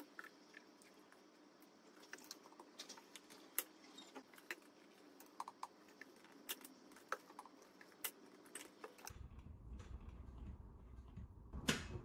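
Faint, scattered clicks and light knocks of hands working a small wooden cabinet door fitted with an electronic lock, with a key in its lock. A louder knock comes near the end as the door is pushed shut against the lock.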